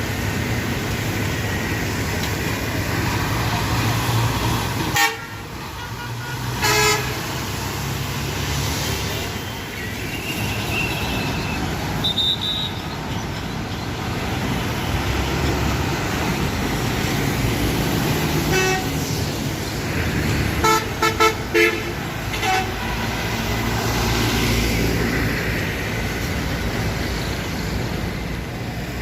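Steady engine rumble and road noise of traffic, with vehicle horns blaring: a blast about seven seconds in, another past the middle, then a quick string of short toots. A sharp knock sounds near the five-second mark.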